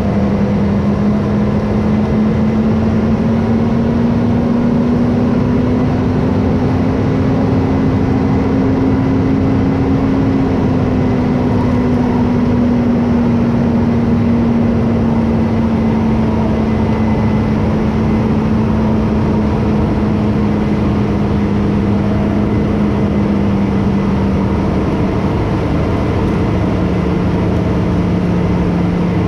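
Farm tractor engine running steadily with an even drone, its pitch rising slowly for about ten seconds and then easing back down.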